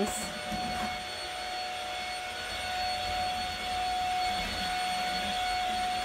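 Corded stick vacuum cleaner running with a steady whine as its floor head is pushed over a wood floor.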